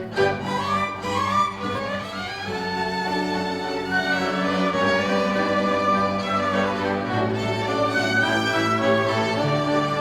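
Violin ensemble with lower strings playing an instrumental hymn passage in long, held notes over a steady bass line.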